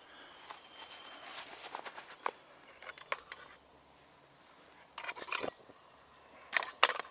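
Light metal clinks and knocks from a Trangia 27 spirit stove and its aluminium frying pan as the pan is lifted off and the simmer ring is taken off the burner. The sound is a scatter of separate clicks, with a small cluster about five seconds in and the loudest pair of clanks near the end.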